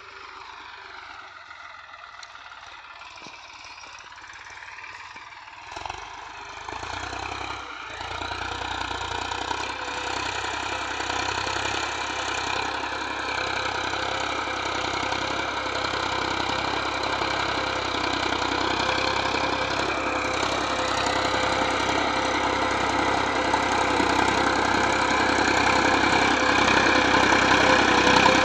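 Massey Ferguson 7250 tractor's three-cylinder diesel engine running steadily under load while pulling a tillage implement through a field, growing louder as it drives closer.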